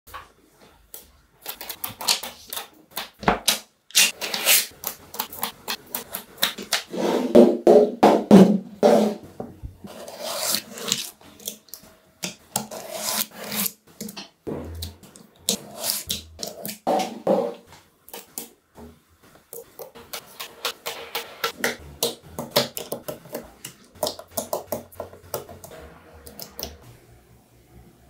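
Small magnetic balls clicking and clattering as they snap together and are pressed into place, in quick irregular runs of sharp clicks, with a denser rattle about eight seconds in.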